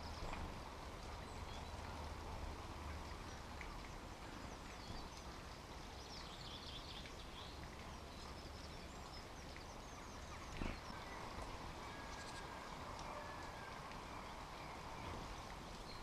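Faint songbirds chirping and trilling in the background, with a bout of chirps around the middle, over a low steady outdoor noise. One soft knock comes about two-thirds of the way through.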